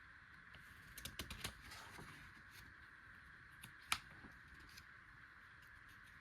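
Faint handling noise: a quick cluster of small clicks about a second in and one sharper click near four seconds, over a faint steady hum.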